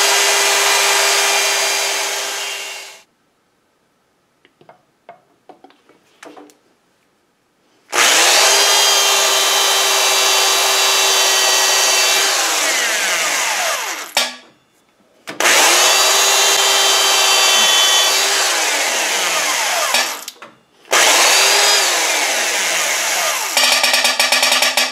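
Small electric motor of a tool post drill, drilling holes in a lathe indexing wheel. It runs four times: each time it winds up to a steady whine, holds, then spins down with a falling pitch. Between the runs there are faint clicks, and near the end a quick run of clicks as the spindle is turned past the ratchet clicker to the next hole.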